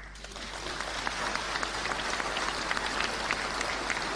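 Audience clapping, swelling over the first second and then holding steady.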